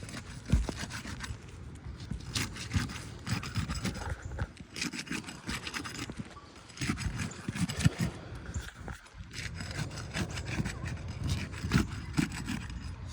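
Scraping and rasping of a tool being worked under and against an asphalt roof shingle, in irregular repeated strokes, as the shingle is pried up for a repairability test.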